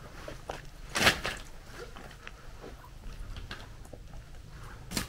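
Dry firewood sticks knocking and scraping as they are handled, in a few short irregular clatters; the loudest comes about a second in and another near the end.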